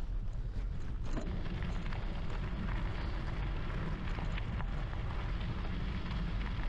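Wind buffeting the microphone of a gravel bike being ridden along a dirt trail, over a rumble of tyre noise. Scattered short clicks and rattles come through.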